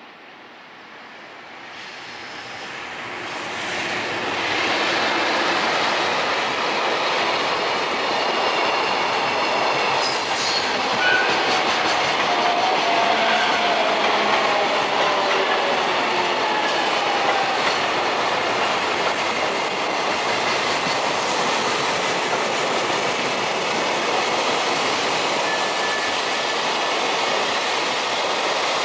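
JR Central 373 series electric train pulling in alongside the platform. Its running noise of wheels on rails grows over the first few seconds, then holds steady, and the GTO-VVVF inverter's faint whine falls in pitch as the train slows. The sound cuts off suddenly at the end.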